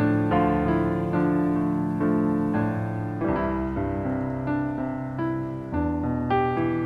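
Solo piano played on a Yamaha digital keyboard: an instrumental piece of sustained chords, a new chord struck roughly every half second to second and each left to ring.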